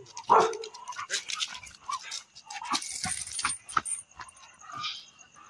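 A dog gives one loud, short bark just after the start, followed by scattered clicks and scuffs and a few fainter dog sounds.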